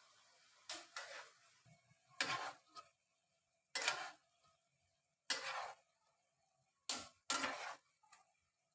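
A kitchen utensil working in a repeated rhythm, making short sharp strokes about one every one and a half seconds.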